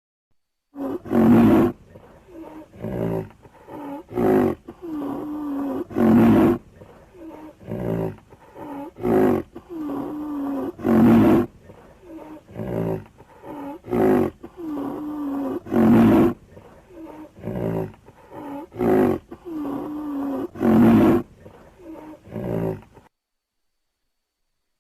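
Lion roaring: a loud roar about every five seconds with shorter, quieter calls in between, the same sequence repeating. It starts about a second in and stops shortly before the end.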